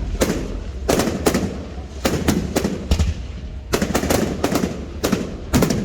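Fireworks going off: a rapid, irregular volley of sharp bangs, several in quick clusters, over a low rumble.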